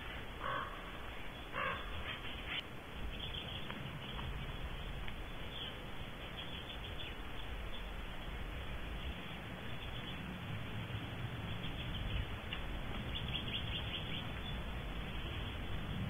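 Barn owl calling in a nest box: two short raspy calls about half a second and a second and a half in, then scattered faint ticks, over a steady hiss.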